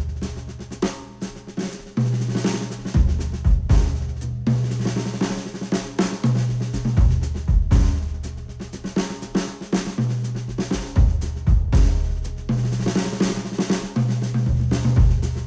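Drum-led music with a deep bass line, reproduced through Sennheiser HD800 S open-back headphones and picked up by microphones on the earcups. Snare and kick drum hits drive a steady beat while the bass note shifts every couple of seconds.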